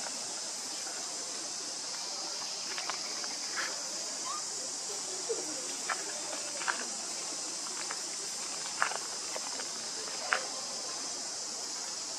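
Steady, high-pitched buzzing of insects, with about half a dozen short, sharp chirps scattered through it.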